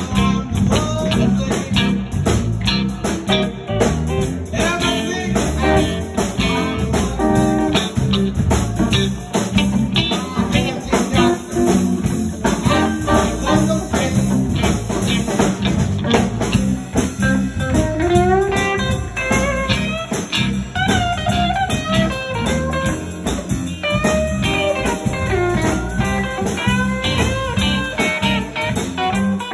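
Live blues band playing: electric guitars, electric bass and a drum kit keeping a steady beat, with a lead line of sliding, bent notes in the middle.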